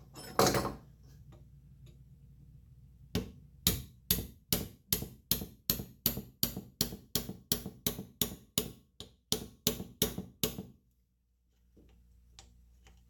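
A hammer tapping a replacement handle part into place on a vacuum pump: one knock just after the start, then a steady run of about twenty sharp taps, roughly three a second, stopping a couple of seconds before the end.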